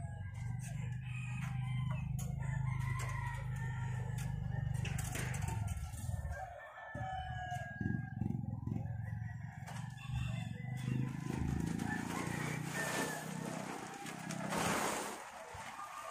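Roosters crowing repeatedly over a low steady hum. Near the end comes a burst of rustling as a plastic tarpaulin is lifted.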